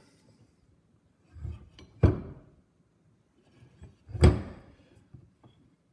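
Two sharp knocks about two seconds apart, each after a short soft rubbing, as a lawn tractor's variator pulley and its rubber V-belts are handled on a wooden workbench.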